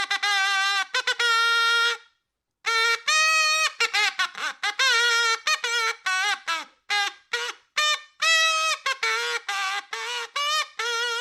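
Comic sound effect: a quick tune of short, nasal, trumpet-like toots, some with a wobble in pitch, broken by a brief silence about two seconds in.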